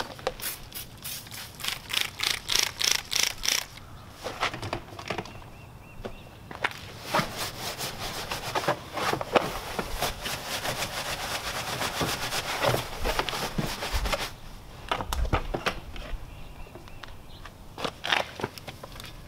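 Stiff-bristled tire brush scrubbing a wet, soapy car tire in quick back-and-forth strokes. There is a fast rhythmic run of strokes near the start, then longer, denser scrubbing through the middle, easing off near the end.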